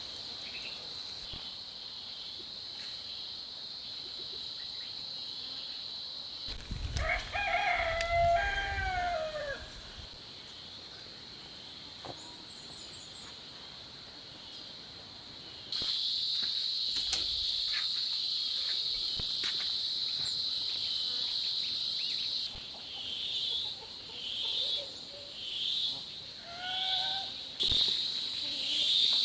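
Steady high insect drone, growing louder about halfway and breaking into rhythmic pulses about once a second near the end. A rooster crows once, about a quarter of the way in, with a shorter call near the end.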